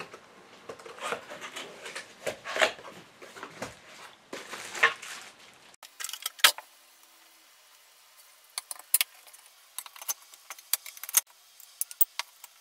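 Parts and screws of a fishing rod rack being handled: irregular rubbing and rustling for the first half, then a sharp knock and runs of light, quick clicks and clinks.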